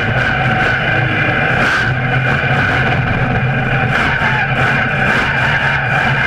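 Monster truck engine running steadily under load, heard from a camera mounted on the truck's chassis beside the front wheel.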